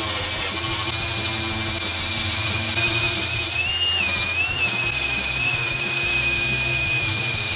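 Cordless angle grinder with an abrasive disc grinding the cut edges and teeth of a steel circular saw blade, sparks flying. A steady high whine over a grinding hiss, rising and dipping briefly around the middle as the pressure on the disc changes.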